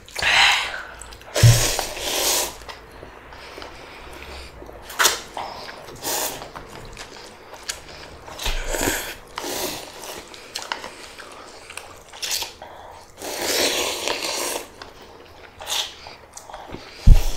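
Mouth eating sounds from slurping and chewing spicy black bean fire noodles, coming in irregular bursts of slurps and sharp breaths. A single loud knock comes near the end.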